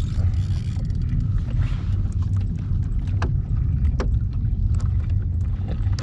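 Steady low rumble of wind on the microphone and water washing against a kayak's hull, with a few short clicks about three and four seconds in.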